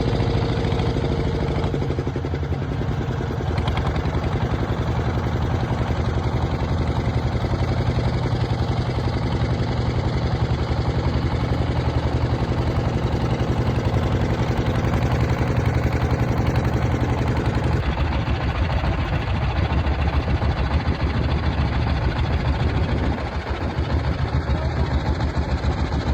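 A vehicle engine running steadily, with its note changing to a rougher, pulsing sound about eighteen seconds in.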